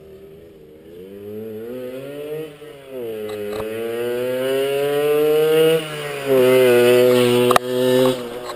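Garelli Cross Brianza two-stroke 50 cc moped riding up and past. Its engine note climbs and drops back twice, like gear changes, and grows louder as it comes closer. It is loudest near the end as it passes close by.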